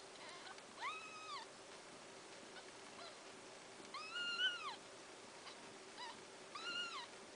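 Nursing kittens mewing: three high, thin mews, each rising and then falling in pitch, about a second in, around four seconds in (the loudest) and near the end.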